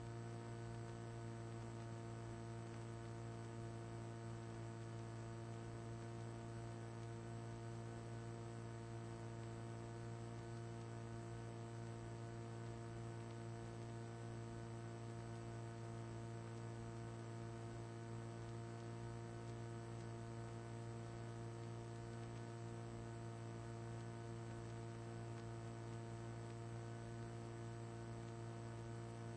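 Steady electrical hum with a row of evenly spaced overtones, unchanging throughout.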